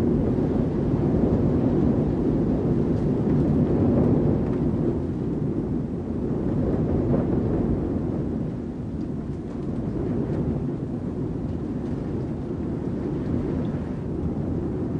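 Wind heard from inside a building: a steady low rumble that swells and eases gently, a little softer in the second half.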